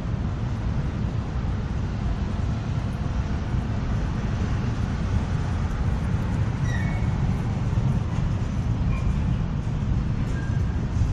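Freight train of covered hopper cars rolling past below, a steady low rumble of wheels on rail. A few faint, brief high squeaks come in the second half.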